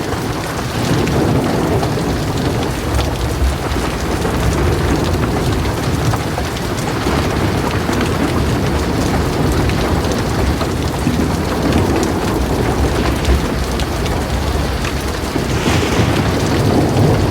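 Heavy rain falling steadily, with a deep, continuous thunder rumble underneath. The hiss grows brighter for a moment near the end.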